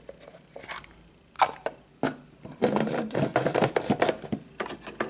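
Hard plastic parts of a drip coffee maker being handled, as its filter basket is handled. Two separate sharp knocks come first, then a quick run of clicking and clattering, and a few more clicks near the end.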